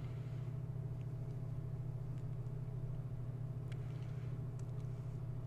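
Steady low background hum with a faint higher tone above it, broken by a few faint clicks.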